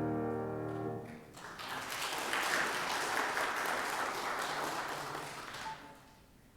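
A held keyboard chord dies away about a second in, then a congregation applauds for about four seconds, tapering off near the end.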